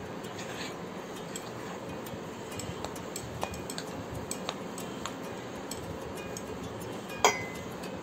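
Soft bread dough being worked by hand in a glass mixing bowl, with faint scattered clicks against the glass. One sharper clink on the bowl, with a short ring, comes about seven seconds in.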